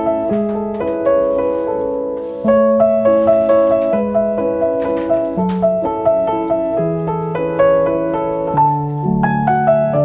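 Background piano music: a melody of evenly paced notes over held low notes.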